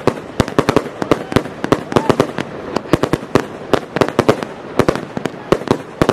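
Fireworks display firing a rapid barrage: shells launching and bursting, with many sharp bangs and pops every second and no pause.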